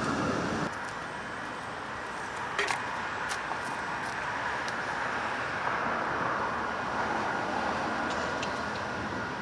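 Steady outdoor traffic hum with a faint, thin, steady whine. A few sharp clicks come about two and a half to three seconds in.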